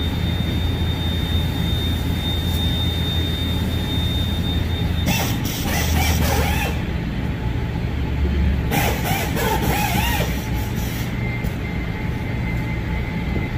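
Steady low machinery hum with a thin high whine during the first five seconds, broken by two bursts of hissing and clatter about five and nine seconds in.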